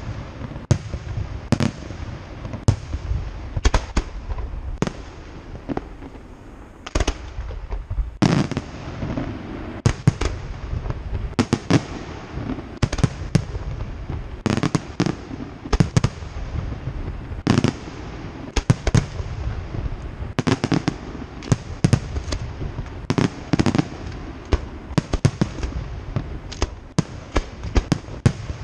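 Fireworks display: aerial shells bursting one after another, about one or two sharp bangs a second, over a continuous low rumble, with a brief lull a few seconds in.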